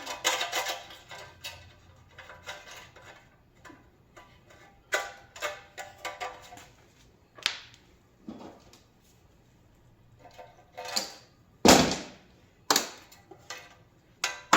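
Scattered metal knocks and clatter from a stainless coffee warmer being taken apart by hand, with a few sharp strikes; the loudest knock comes near the end.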